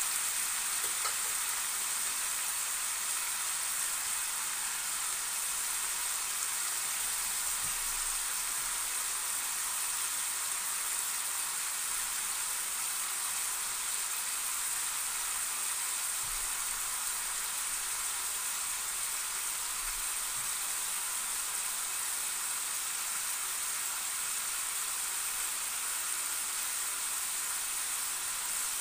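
Chicken breast with chopped onion and green pepper sizzling steadily in a pan, an even hiss.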